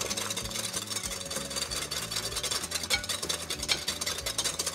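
A balloon whisk beating eggs and sugar in a large ceramic mixing bowl, its wires scraping round the bowl in rapid strokes. The mixture is aerating and has almost doubled in size.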